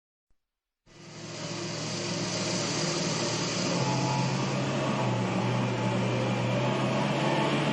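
Steady engine-like vehicle hum that fades in after about a second of silence and then holds at a steady level.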